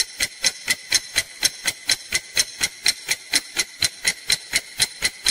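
Clock-style ticking sound effect, about four quick ticks a second, timing the five-second countdown before the answer is revealed.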